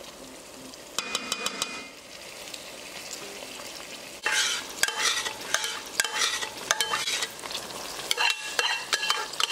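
Onions and tomato purée frying in hot oil, sizzling and crackling, while a wooden spoon stirs and scrapes them in the pot. The sizzling grows louder a little over four seconds in, as stock is added to the hot oil.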